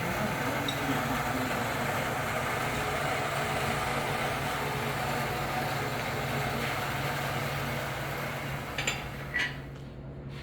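An engine running steadily at an even speed. Near the end the sound drops away and two short knocks are heard.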